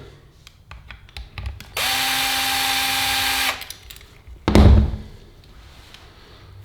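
Power drill-driver running at a steady speed for about a second and a half to back out a screw from the Yale lock case, starting and stopping abruptly. About a second later comes a single loud dull thump.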